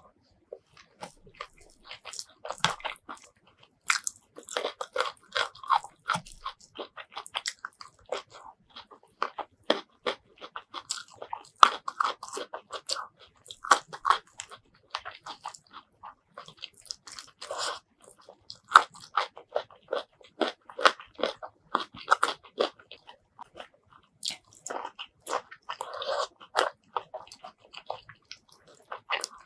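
Close-miked eating sounds: crisp crunching bites and wet chewing of raw vegetables eaten with rice and sambal, in an irregular stream of crackles and clicks.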